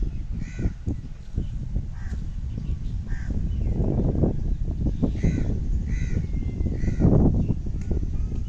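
A string of short bird calls, one about every second, over a steady low rumble that swells twice.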